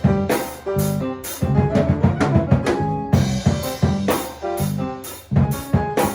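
Live instrumental Latin jazz played by a small group. A drum kit plays sharp drum, rimshot and cymbal hits, with short, choppy pitched notes from another instrument in between.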